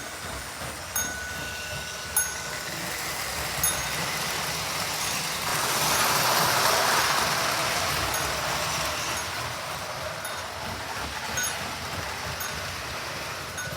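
Lionel 1656 postwar toy switcher running on the track, its bell ringing in single strikes every second or two. About five seconds in, a louder rushing rumble swells and fades over a few seconds as the Lionel 752W City of Portland streamliner passes on the main track.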